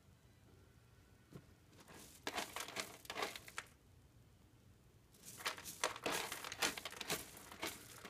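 A kitten scratching and digging in granular cat litter in a plastic litter box, with a run of quick scratchy rustles about two seconds in and a longer run from about five seconds in.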